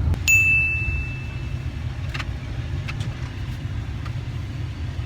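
Car engine idling with a steady low rumble, heard from inside the cabin. About a third of a second in comes a single high-pitched ding that rings out over a second or so.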